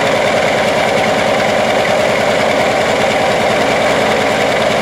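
Antonov An-2's Shvetsov ASh-62 nine-cylinder radial engine running steadily with a fast, even firing beat, shortly after a cold start, its propeller turning.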